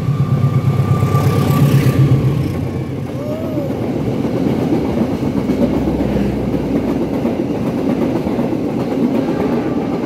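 Diesel locomotive passing close at speed, its engine loudest in the first two seconds, followed by the steady rumble and clatter of passenger coaches' wheels on the rails.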